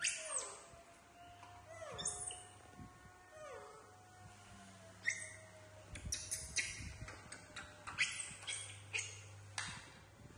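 Baby macaque crying in three high, falling squeals a second or two apart, then a run of short, sharp high-pitched sounds in the second half.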